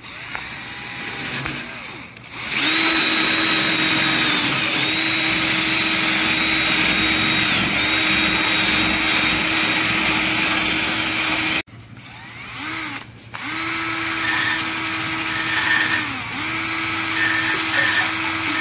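Power tool spinning a wire brush to scrub out crevices in the bodywork. Its steady whine starts a couple of seconds in and dips in pitch now and then. It stops about two-thirds of the way through, blips once, and then runs again.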